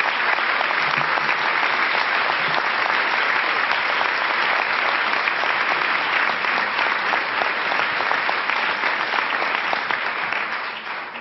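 Large audience applauding: dense, steady clapping that starts to die away near the end.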